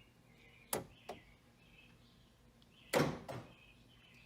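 Power door lock actuator and door latch mechanism in a 1999 Chevrolet Suburban door being cycled, giving a few sharp clicks: one just under a second in, a fainter one soon after, and a louder double clunk about three seconds in. The actuator barely moves the lock, the sign of a failing actuator.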